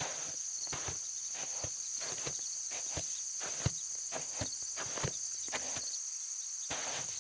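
Footsteps on a dirt trail strewn with dry leaves, about two steps a second, over steady high-pitched insect chirring.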